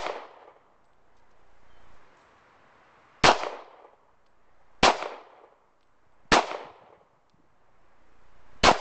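Glock pistol fired four times, each a sharp shot with a short echo. The first three shots come about a second and a half apart, starting about three seconds in, and the fourth comes near the end, after a longer pause.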